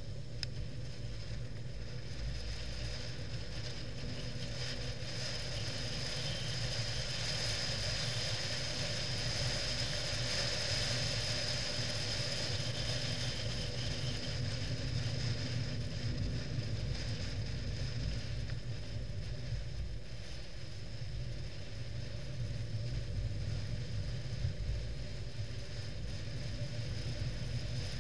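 Longboard wheels rolling fast on asphalt during a downhill run: a steady road roar with some mechanical rattle, a little louder through the middle.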